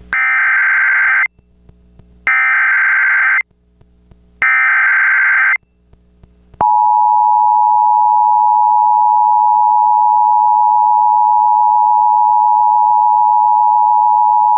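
Emergency Alert System header: three one-second blasts of buzzy digital data tones with short gaps, followed about six and a half seconds in by the steady single-pitch EAS attention tone held for about nine seconds, signalling the start of a tornado warning.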